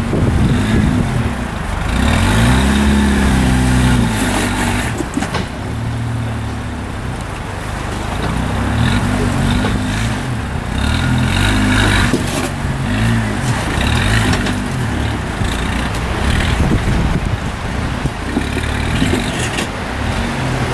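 Jeep Wrangler's engine revving up and dropping back again and again as the Jeep crawls over boulders, its pitch rising and falling with each push of the throttle.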